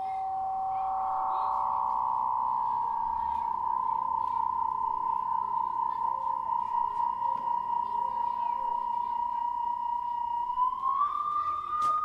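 A sustained electronic tone, close to a pure whistle-like pitch, held steady with a slight wavering, then sliding up in pitch near the end; a fainter, higher tone runs alongside and rises with it, with a few faint clicks.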